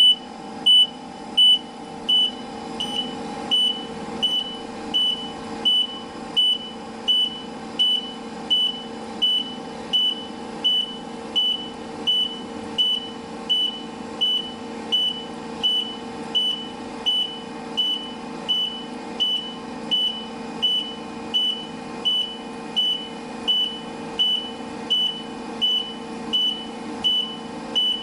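Truck reversing alarm (back-up beeper) sounding a steady series of short, high-pitched beeps, about three every two seconds, over a steady low drone.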